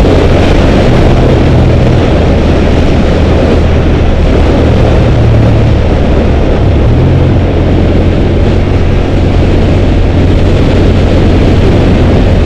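Heavy wind rush on the microphone of a moving motorcycle, with the steady drone of a 2005 Suzuki SV650's V-twin engine underneath. The engine's pitch shifts slightly a few times along the way.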